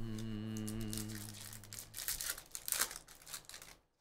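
Foil card pack wrappers crinkling and tearing as packs are ripped open. A steady low hum runs under it for about the first two seconds.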